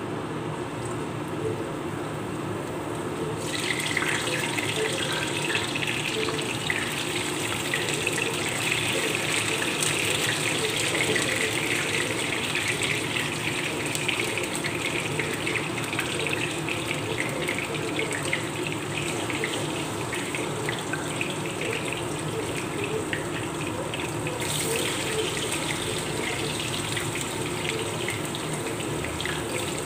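Sweet potato slices frying in hot oil in a pan: a sizzle full of fine crackling that swells about three seconds in, as more slices go into the oil. A steady low hum runs underneath.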